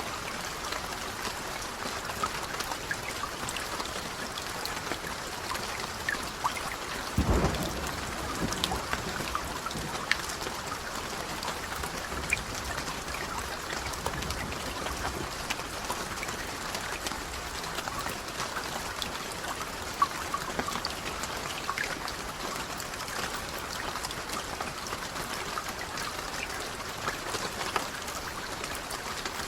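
Steady rain, with many individual drops tapping on a surface. About seven seconds in, a brief low rumble of distant thunder.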